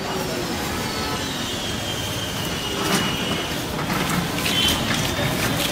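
Busy street traffic noise with a long, high squeal that slides down in pitch over the first few seconds.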